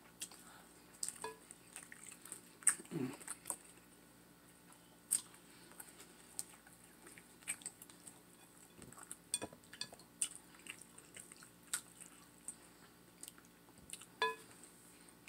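Faint wet squelching with scattered small clicks and taps: a baked turkey leg being dipped and turned by hand in a glass bowl of thick sauce, with one louder tap near the end.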